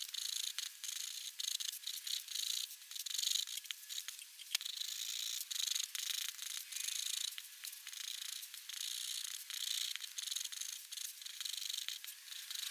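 Pigment pen nib scratching across paper in many short strokes with brief gaps between them.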